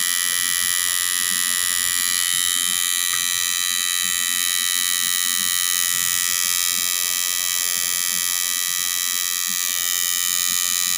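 Coil tattoo machine buzzing steadily as its needle works into skin, a constant high buzz that holds the same pitch and level throughout.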